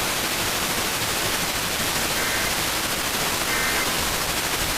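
Steady radio static hiss, with faint short high beeps twice in the middle.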